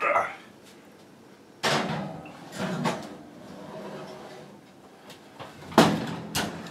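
Oven being closed up: a couple of knocks about two and three seconds in, then the oven door shutting with a sharp bang near the end.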